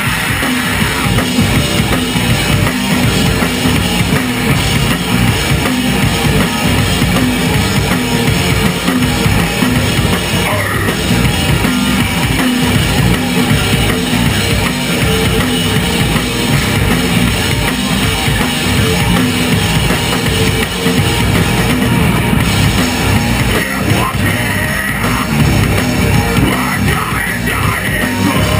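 Stoner metal band playing live and loud: distorted electric guitars and bass guitar over a full drum kit with a pounding bass drum.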